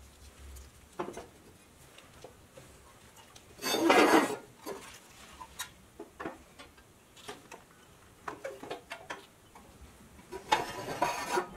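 Small metal parts being handled on a workbench: scattered clinks, taps and knocks, with a louder burst of rasping noise about four seconds in and another near the end.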